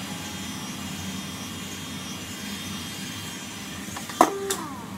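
Small handheld heat gun running with a steady fan hum, blowing hot air to soften the screen adhesive. A single sharp knock about four seconds in, with a brief ringing after it.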